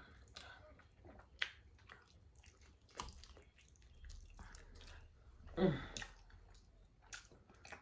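Close-up mouth sounds of a person chewing and eating, with scattered small wet clicks. A short hummed voice sound comes about two-thirds of the way through.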